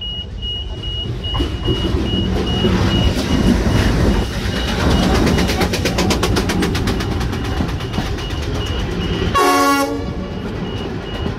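Pacific National NR class diesel-electric locomotive running as it passes close by, then the AK track-recording cars rolling past behind it. There is a short horn blast near the end, and a level-crossing warning beeps steadily throughout.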